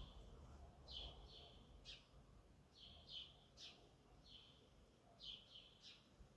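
Faint bird chirps: about ten short, high notes, some in quick pairs, spaced roughly half a second to a second apart, over a faint low background hum.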